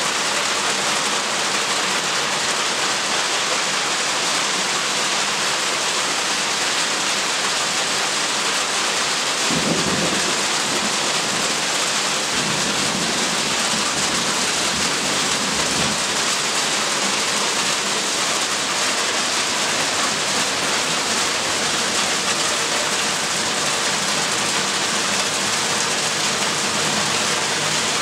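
Hail and heavy rain drumming steadily on the roofs, with a roll of thunder that starts about ten seconds in and rumbles on for several seconds.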